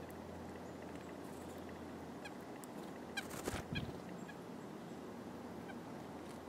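A bird gives a brief call about three seconds in: a quick run of short repeated notes, with a few clicks and a soft thump, over steady outdoor hiss.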